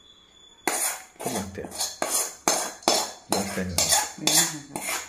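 A metal spoon scraping and knocking against a stainless-steel bowl while stirring rice with a tempering, starting about half a second in and repeating roughly twice a second, each stroke ringing briefly.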